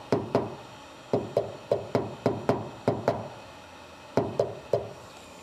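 A hammer tapping a sleeved knockdown tip against the steel body panel of a 1966 Chevrolet Impala, knocking down high spots in paintless dent repair. About a dozen sharp taps come in quick pairs and threes, each with a brief ringing note, with a short pause before the last three.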